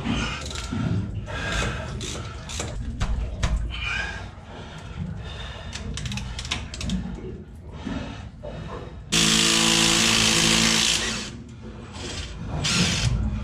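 Metal hand tools clink and knock against engine parts. About nine seconds in, a power drill runs at a steady whir for about two seconds.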